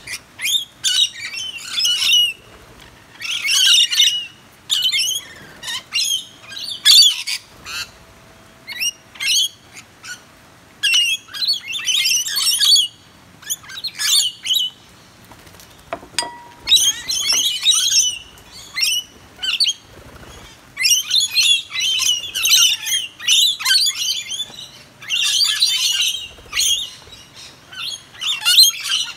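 A flock of rainbow lorikeets screeching and chattering in bursts of harsh, rapid calls, with short pauses between the bursts.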